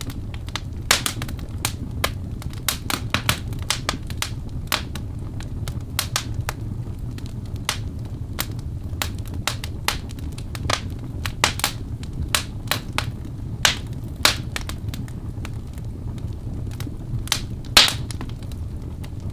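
Wood fire burning: irregular sharp crackles and pops over a steady low rumble of the flames, with one loud pop near the end.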